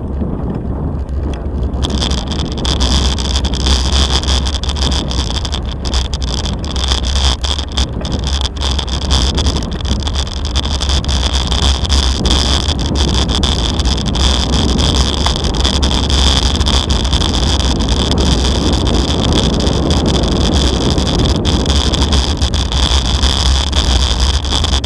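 Bicycle rolling over cobblestone paving, a continuous rumble with dense rattling and knocking from the bumpy stones, and wind buffeting the microphone. A steady high-pitched whine joins about two seconds in.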